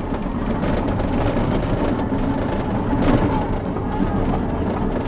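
Caterpillar D6 XE diesel-electric hybrid dozer running steadily in reverse, its diesel generator held at one constant speed rather than rising or falling with the throttle, with a few light knocks over the steady noise.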